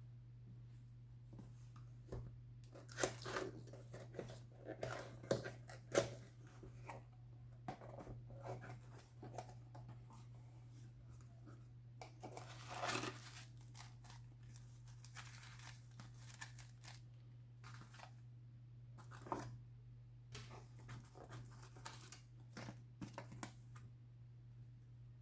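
Plastic vacuum-sealer bag being handled: irregular crinkling and rustling with scattered clicks and taps, and a longer rustle of about a second near the middle.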